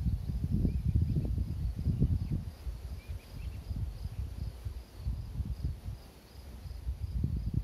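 Wind buffeting the microphone in uneven gusts. Behind it, a faint high chirp repeats about twice a second, with a few short chirps lower down near the start and about three seconds in.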